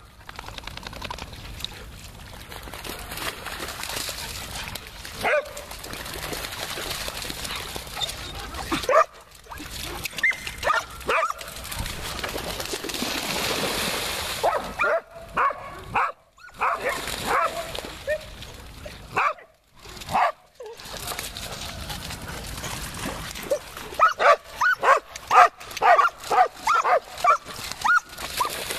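Several dogs barking and yipping in play while they run and splash through shallow floodwater, with a quick run of excited barks near the end.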